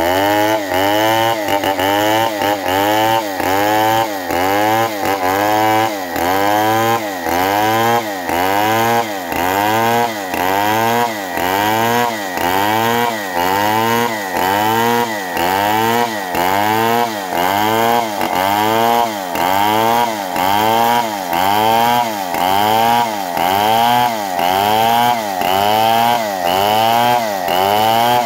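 Two-stroke TECOGOLD chainsaw ripping a waru log lengthwise under load. The engine pitch swings down and back up in a steady rhythm about once a second, with a short dip in loudness each time.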